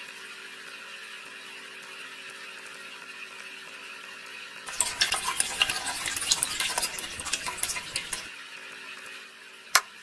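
Faint steady hum, then a few seconds of wet cement mix sloshing and scraping out of a small tin-can mixer drum, with many small clicks and scrapes, as the drum is tipped to pour into a tray. One sharp click comes just before the end.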